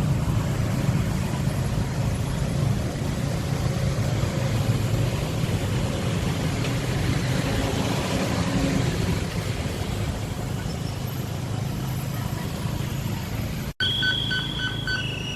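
Street traffic and a motorcycle engine heard from the back of a moving motorbike taxi, a steady low rumble with wind noise on the microphone. Near the end the sound drops out briefly and a steady high tone with several pitches follows.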